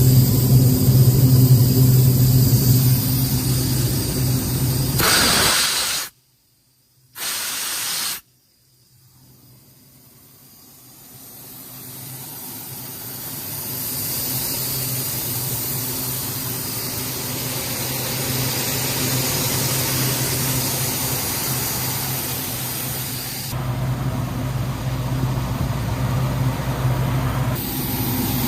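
Cummins QSX15 diesel engine of a towable air compressor running steadily. The sound breaks off about six seconds in. A rushing hiss then builds over several seconds and holds, and the engine is heard again under it near the end.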